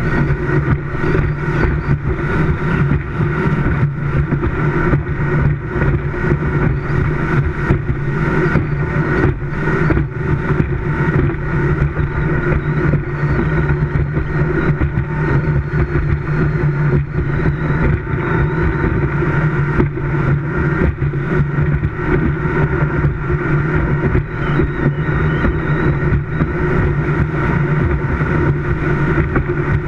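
Speedboat engine running steadily at high speed, with wind buffeting the bow-mounted camera's microphone in irregular gusts.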